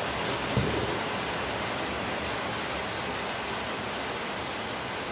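Steady hiss of background noise, with one short knock a little over half a second in.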